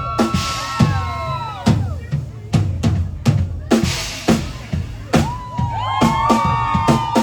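Live country band playing an instrumental break, recorded from the crowd: a steady drum-kit beat under a lead line of notes that bend and slide in pitch.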